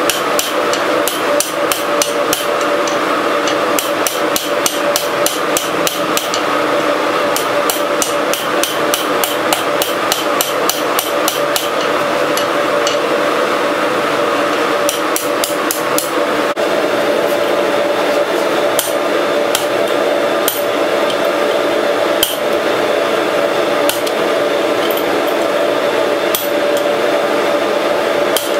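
Blacksmith's hand hammer striking red-hot steel on an anvil. Quick regular blows, about three to four a second, give way after about twelve seconds to slower, spaced single blows, over a steady hum.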